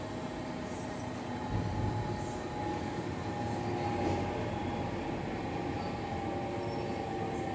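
A steady mechanical drone with faint held whining tones, growing a little louder about one and a half seconds in.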